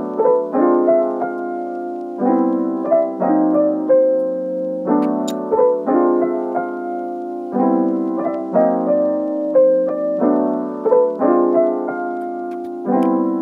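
Background piano music: a short phrase of chords with a melody over them, repeating every few seconds.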